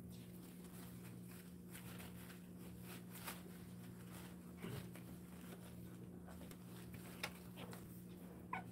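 Faint room tone with a low steady hum, broken by a few soft ticks of dachshund puppy paws and claws padding on the floor and mat. A brief, high puppy whimper comes near the end.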